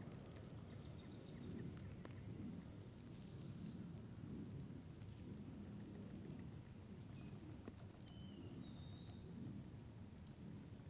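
Quiet woodland ambience: small birds give short, high chirps every second or so, with a few thin whistled notes, over a low steady rumble.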